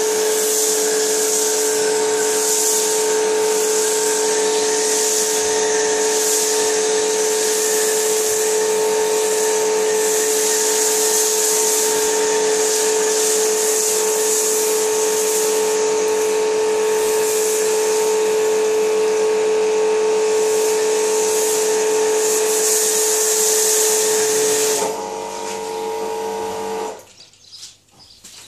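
Kärcher 140-bar electric pressure washer running steadily, its motor and pump humming under the hiss of an MTM snow foam lance spraying foam. Near the end the spray hiss stops, and a couple of seconds later the motor stops too.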